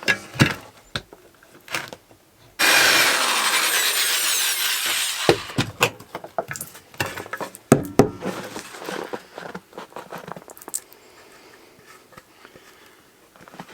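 Power drill boring a pilot hole into wood. It runs steadily for about three seconds, starting suddenly and stopping abruptly, and is surrounded by knocks and clicks of the work being handled.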